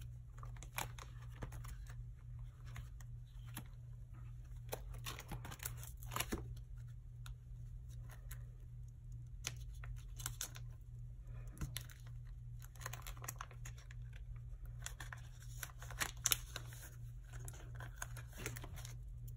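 Paper sticker sheets rustling and crinkling as they are handled, with stickers being peeled off their backing in short, scattered bursts. A steady low hum runs underneath.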